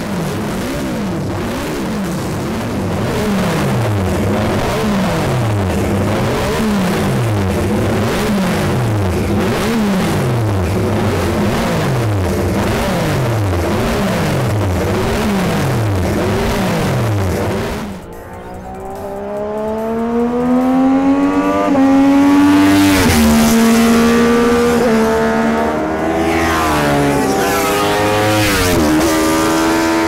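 Classic racing motorcycle engines revving, several at once, with a falling sweep that repeats about every second and a half. A little past halfway this gives way to a single engine revving hard, its pitch climbing and dropping several times.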